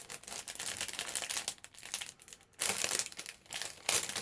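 Packaging crinkling and rustling as an item is handled and pulled out, in irregular bursts, loudest in the second half.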